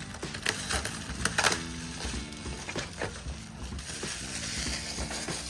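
Crinkling and rustling of plastic packaging being handled, with several sharper crackles; the loudest comes about a second and a half in.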